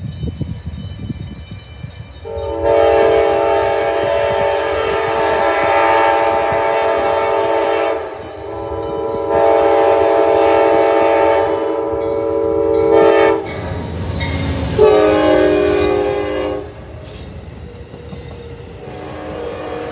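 Amtrak passenger train's locomotive horn sounding two long blasts as it approaches. The locomotive then passes with a loud low rumble, and a shorter third blast sounds slightly lower in pitch. The passenger cars then roll by.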